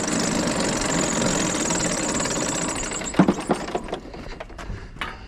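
Vehicle engine idling steadily, then shutting off a little under four seconds in, with a sharp knock just before it stops and a few light clicks after.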